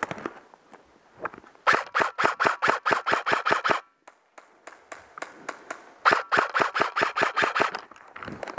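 Airsoft rifle firing two full-auto bursts of about two seconds each, roughly eight shots a second, with a few single shots between them.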